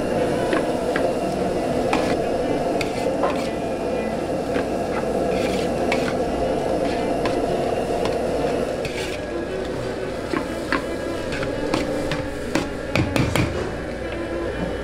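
A metal spatula (wok ladle) striking and scraping a wok while fried rice is stir-fried: frequent sharp clanks over a steady rushing noise, with the clanks coming thicker and louder near the end.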